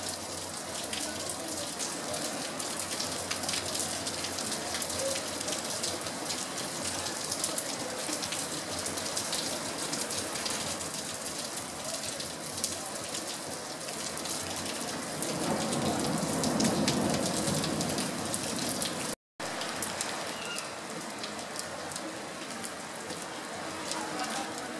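Hailstones and rain pelting corrugated metal roofs in a heavy hailstorm: a dense, steady clatter of many sharp ticks over a hiss. A louder, lower surge comes about two-thirds of the way through, and the sound cuts out for a moment shortly after.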